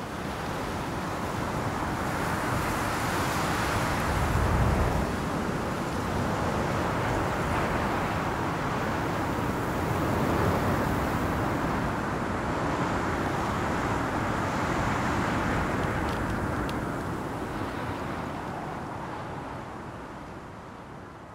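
Steady rushing wind, swelling and easing, with a low rumble about four seconds in; it fades out near the end.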